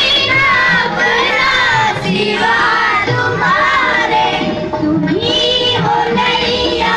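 A group of children singing a prayer song together in unison, with long held notes.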